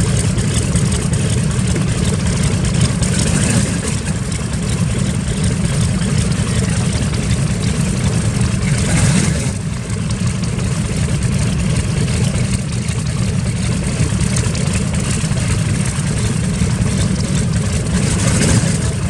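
Large radial piston aircraft engine running steadily, the Wright R-2600 Twin Cyclone of a WWII warbird, with a deep continuous rumble. A rush of noise swells briefly about halfway through and again near the end.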